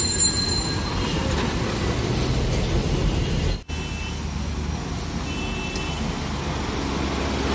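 Diesel truck engines running slowly in street traffic, a steady low rumble. An abrupt break about three and a half seconds in switches to a second truck's engine, a Tata, running at a similar low rumble.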